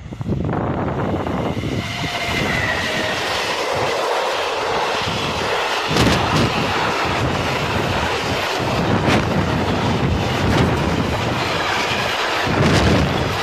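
Freight train of tank wagons, hauled by electric locomotive E37503, passing close by: a loud steady rumble of wheels on rail, with a few sharp clacks as the wheels cross rail joints.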